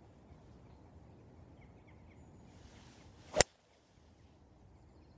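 Number 2 hybrid (rescue club) striking a golf ball off turf: a faint swish of the downswing, then one sharp crack of impact about three and a half seconds in.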